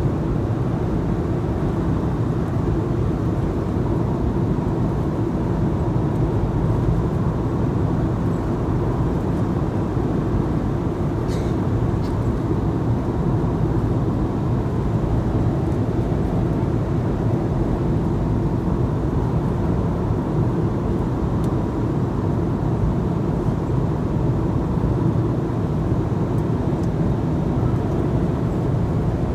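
Steady airliner cabin noise: a constant low rumble of the jet engines and rushing air, with a faint steady hum over it. A single small click about eleven seconds in.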